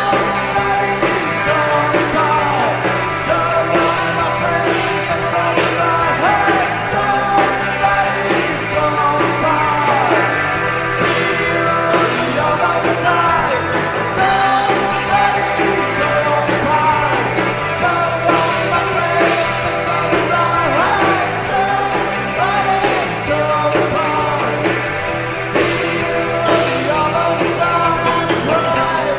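A rock song plays throughout, with singing over electric guitars and a band backing.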